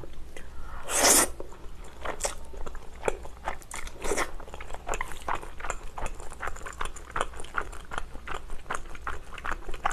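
Close-miked slurp of wide Chinese glass noodles about a second in, then steady chewing with many small wet clicks and smacks of the mouth.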